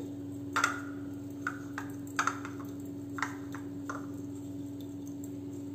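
Fingers mixing grated cheese and chilli flakes in a small ceramic bowl: about five light clicks and clinks against the bowl, each with a short ring, over a steady low hum.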